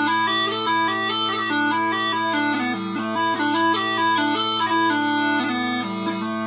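Robert Felsburg (Quietpiper) small pipes playing a tune on the chanter over steady drones. Near the end the melody stops and the drones sound on alone.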